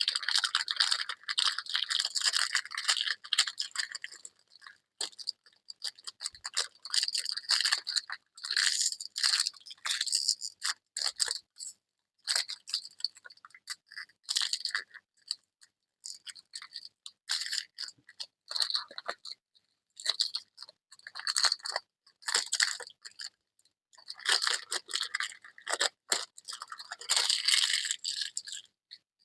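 Packaging being unwrapped and torn open by hand: dense crinkling and crackling in bursts with short pauses between them.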